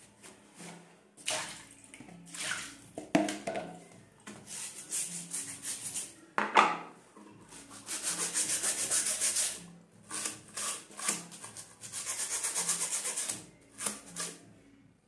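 A plastic comb scraped back and forth through the stiff bristles of a hairbrush to clean it out, in irregular strokes with two runs of fast, even strokes in the second half.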